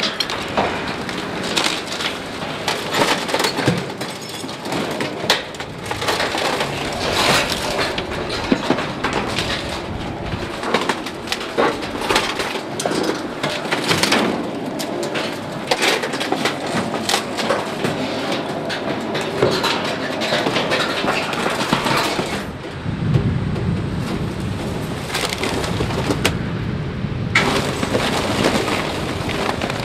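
Spiked compression roller of a Bergmann Roll-Packer RPM 7700 rolling over mixed waste and cardboard in an open container, crushing it: continuous cracking, splintering and crunching full of sharp snaps. About three-quarters of the way through, the crackling eases for a few seconds under a lower, steady machine hum, then picks up again.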